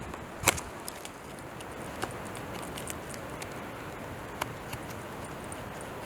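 Carving knife cutting into Kalopanax wood: scattered sharp ticks and one louder click about half a second in, over a steady background hiss.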